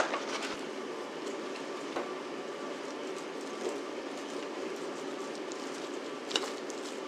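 A steady, even hum of kitchen room noise with faint tones in it. Over it come a short click at the start, a few soft ticks, and a brief rustle about six seconds in as sliced ham is laid onto the sandwich.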